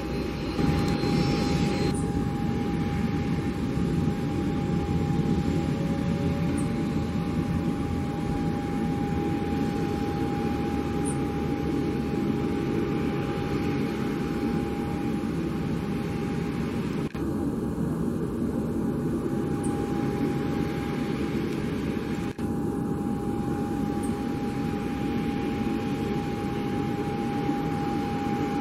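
Twin rear-mounted turbofans of a Cessna Citation business jet running at taxi power: a steady rushing sound with a constant whine. The sound briefly drops out twice near the middle.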